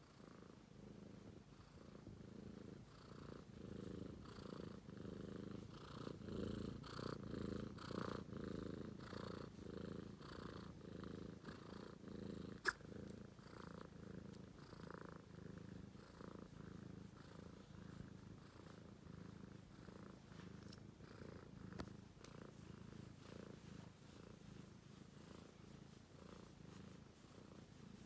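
British Shorthair kitten purring steadily in even pulses, a little louder for a few seconds before the middle. A single sharp click about halfway through.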